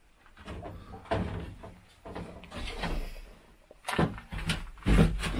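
A series of knocks and clunks from objects being shifted and set down while a cluttered woodshed is cleared out; sparse at first, busier near the end.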